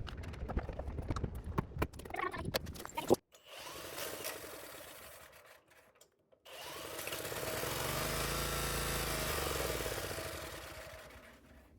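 Honda F501 rototiller's small engine being started without its pull-cord starter: a few seconds of knocks and clicks, a short run that fades out, then the engine catching on added fuel, rising in speed and dying back down near the end. It runs only while fuel is fed to it, pointing to a carburettor that needs cleaning.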